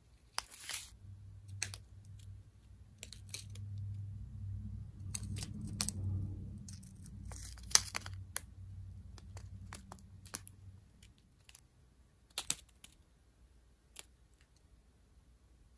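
Strips of clear plastic bags of square resin diamond-painting drills crinkling and crackling as they are handled, in scattered sharp crackles, the sharpest about eight seconds in. A low rumble runs underneath for roughly the first ten seconds.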